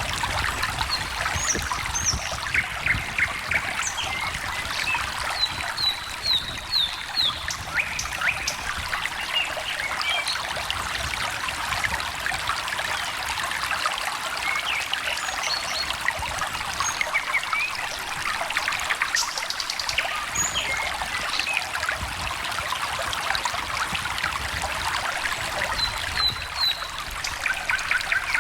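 A small stream trickling and burbling steadily, with birds chirping in short calls scattered throughout.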